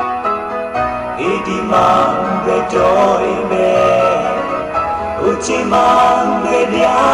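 A song with a male singing voice over steady instrumental accompaniment; the voice comes in about a second in and carries on in long sung phrases.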